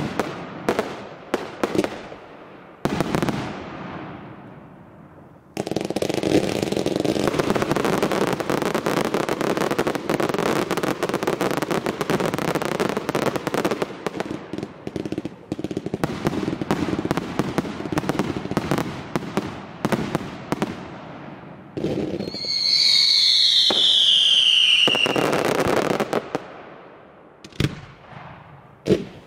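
Fireworks display: sharp launch bangs and bursts, then a long stretch of rapid crackling lasting about a quarter of a minute. About 23 seconds in a whistle falls in pitch over two or three seconds, and more bangs follow near the end.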